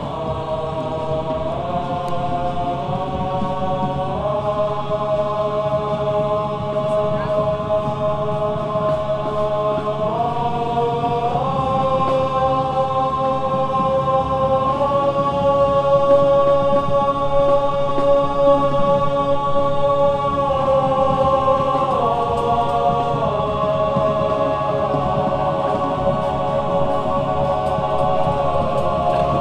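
A drum and bugle corps ensemble holding a slow chorale of sustained chords, each held for one to four seconds before the parts move together to the next, growing somewhat louder toward the middle.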